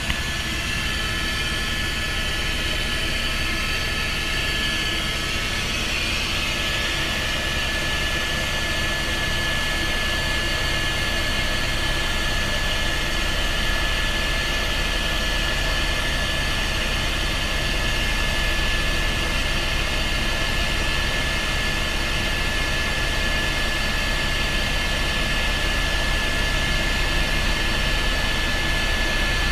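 Helicopter engine and rotor heard inside the cabin in flight: a steady drone with a constant high whine over a low rumble.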